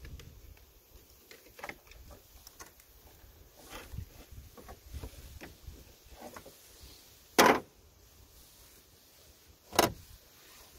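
Light clicks and taps of gloved hands and tools working at a truck battery's terminals and hold-down. In the second half come two loud, sharp knocks about two seconds apart.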